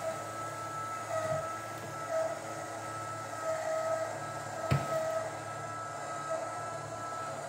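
Litter-Robot 3 automatic litter box running its cleaning cycle: the globe's drive motor turns the drum with a steady whine over a low hum, with repeated short squeaks and one sharp click about two thirds of the way in. The owner finds this unit's running noise very loud, and says it has grown louder with use.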